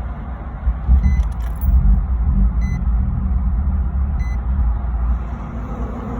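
Low, steady rumble of a car running, with three short electronic beeps evenly spaced about a second and a half apart.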